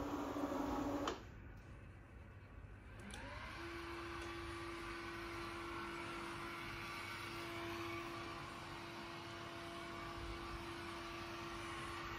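Electric motor of a motorised sheer Roman blind: a hum that cuts off about a second in, then a motor starting with a rising whine and settling into a steady hum as the sheer draws up.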